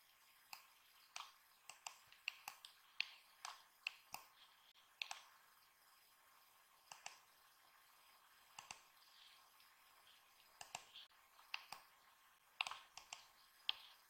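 Computer mouse buttons clicking, a string of short, sharp clicks at irregular spacing, some in quick pairs, with a quieter spell about halfway through.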